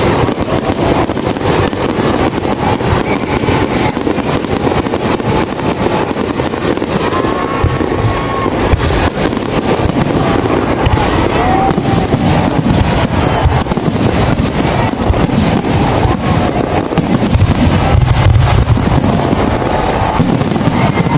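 Fireworks display: a dense, continuous barrage of aerial shell bangs and crackling, with heavier booms near the end. Voices from the watching crowd rise over it.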